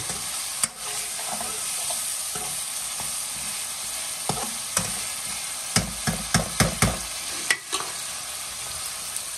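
Meat curry sizzling in a pot as it is stirred with a spoon, a steady frying hiss. In the second half, a quick run of sharp knocks and scrapes as the spoon hits the pot.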